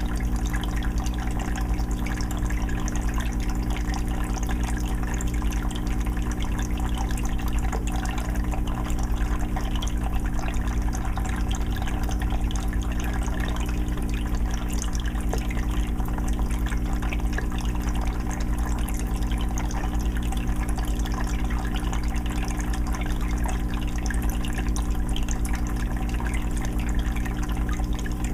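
Aquarium water filter running on a 20-gallon fish tank: water steadily trickling and splashing into the tank over a steady low motor hum.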